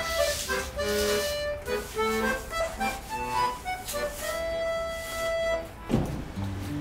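Solo accordion music playing a melody. About six seconds in it breaks off with a short knock, and lower notes of a different piece begin.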